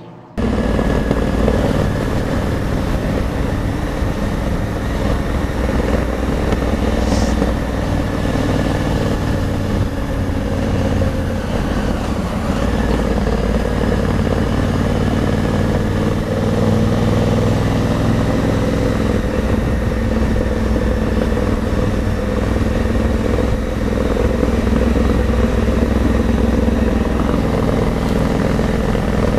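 Honda Africa Twin motorcycle engine running steadily while riding along at road speed, with wind rush over the bike-mounted camera.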